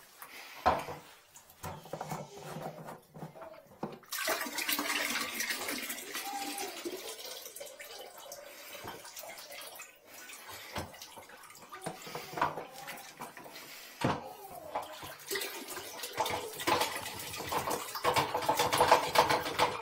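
Dirty water poured from a shop-vac's collection tank into a toilet bowl: a steady splashing pour that starts about four seconds in, after a few knocks.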